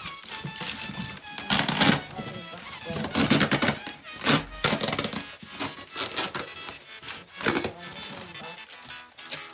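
Cardboard and plastic packaging being torn open and handled: irregular crackling, rustling and knocks, over steady background music.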